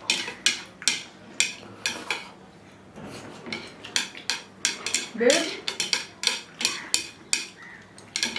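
Chopsticks clicking and tapping against a bowl while noodles are eaten: many short, irregular clicks. A short spoken word breaks in about five seconds in.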